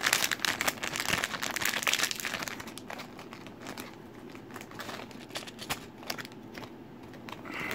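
Plastic blind bag of a Transformers Micro Changers figure crinkling as it is torn open and handled by hand. The crinkling is dense for the first three seconds or so, then drops to quieter, scattered rustles and clicks as the contents are taken out.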